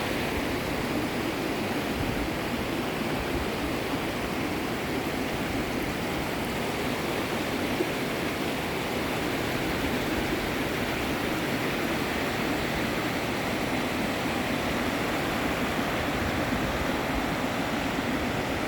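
Jacques-Cartier River rapids rushing in a steady, unbroken roar of water.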